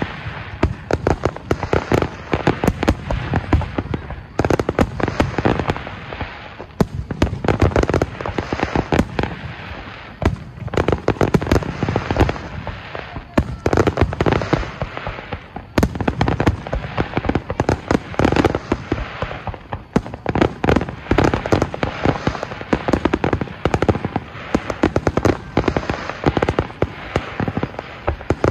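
Fireworks finale barrage: many shells and stars bursting in quick, overlapping bangs and crackles without a break, swelling and easing in waves every few seconds.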